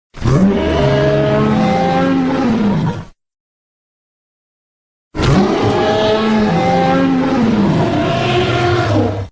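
Two Tyrannosaurus rex roar sound effects: a deep, pitched roar of about three seconds whose tone rises then falls, then after a gap of total silence a second roar of about four seconds starting about five seconds in.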